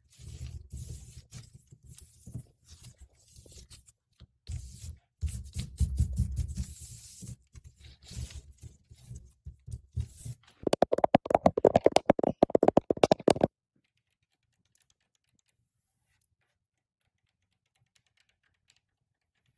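Long decorated false nails scratching over a textured foam brick wall panel, followed about eleven seconds in by a loud, fast run of nail taps lasting nearly three seconds. The last six seconds are near silent.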